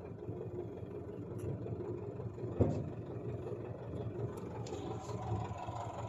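Low, steady engine hum, like a diesel running at idle, with one sharp knock about two and a half seconds in.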